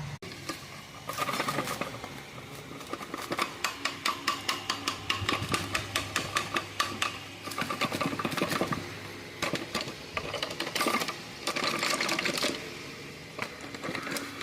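Metal clicking and rattling from hand work on an opened car gearbox and its bearings. Runs of quick, sharp clicks come about three a second, with pauses between the runs.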